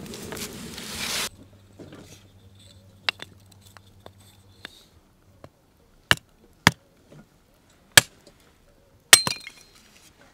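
Hatchet chopping small sticks of firewood into kindling: a series of sharp single chops, irregularly spaced about a second apart, the loudest in the second half. It opens with a second of steady hiss that cuts off suddenly.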